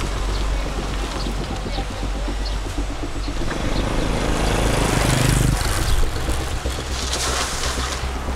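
Motor vehicle engines on a street: a car pulls away, and a small motorcycle rides up near the end.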